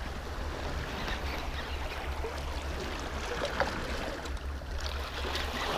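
Sea water washing and trickling against shore rocks, over a steady low rumble, with a few faint ticks.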